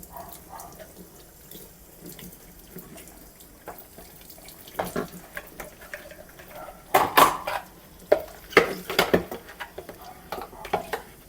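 Plastic vacuum-cleaner parts being washed in a sink of water, with sloshing and splashing and a run of sharp plastic knocks against the sink, loudest from about seven to nine seconds in.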